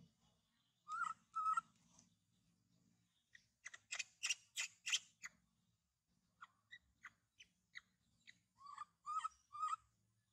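Short high-pitched chirping calls in small clusters: two about a second in, a quick run of sharp chirps in the middle, scattered single notes, then three calls close together near the end.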